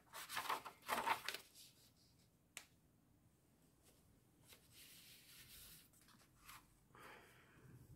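Paper rustling as a journal page is turned, loudest in the first second, with a single light click about two and a half seconds in. Fainter paper rustles follow as a tabbed card is slid out of a pocket on the page.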